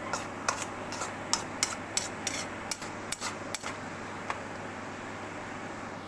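Sliced mushrooms sizzling in oil and soy sauce in a pan while a spatula stirs them, its edge clicking and scraping against the pan many times in the first few seconds, then the sizzle runs on with only a stroke or two.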